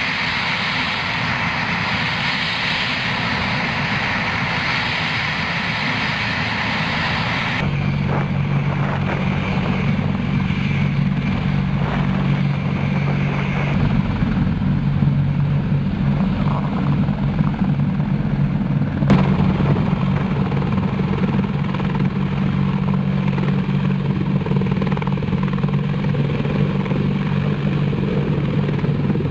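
AH-64 Apache helicopter running on the ground and lifting off. For the first several seconds a bright turbine hiss dominates. It then changes abruptly to a steady low, tonal rotor hum, with a single sharp click in the middle.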